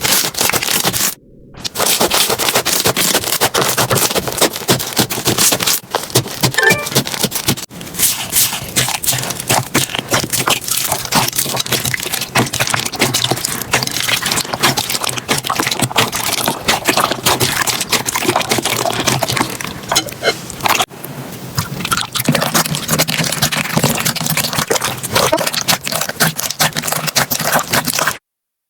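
Slime being squeezed, pressed and poked by hand, giving dense crackling, clicking and scraping sounds. It breaks off briefly about a second in and again near the end.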